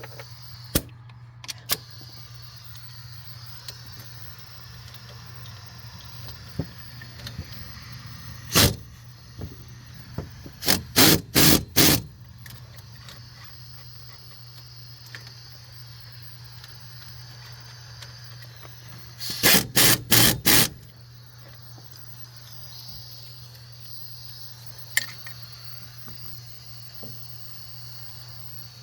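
Impact wrench run in short bursts, tightening the new front wheel hub's mounting bolts: one burst, then four in quick succession, then another quick run of four about eight seconds later.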